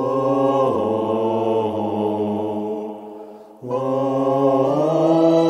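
Intro music of long held, droning chant-like notes in two phrases: the first fades out a little after three seconds and the second starts straight after it.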